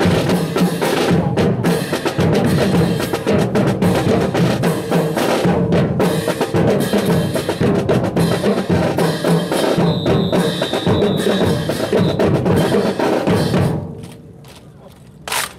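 Drum-led marching music with snare and bass drum, accompanying a drill team, that stops abruptly about 14 seconds in. A single sharp crack follows shortly before the end.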